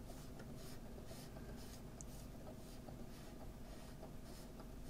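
Faint steady low hum with a soft scratchy crackle from the speakers of a 1967 National SG-725 portable record player and radio, as its front-panel knobs are turned.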